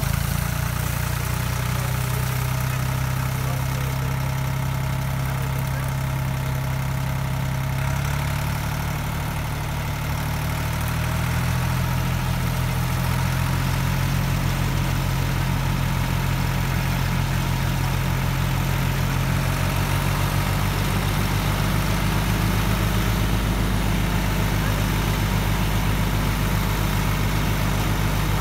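SAME Frutteto 60 tractor's diesel engine running steadily while it drives a rear-mounted rotary tiller through the soil. The engine note changes about 8 seconds in and again near 11 seconds, where it gets slightly louder.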